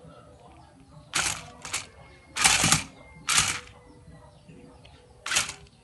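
Small electric motors of a toy RC stunt car whirring in short bursts as it is driven in jerks, five times; the longest and loudest about two and a half seconds in.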